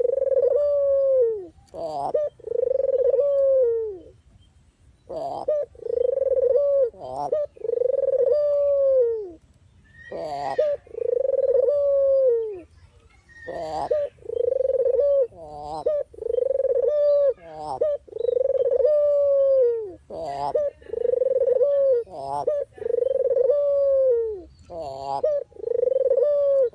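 Puter (collared) dove cooing over and over. Each coo lasts about a second and slides down in pitch at the end, and short quick notes come between the coos.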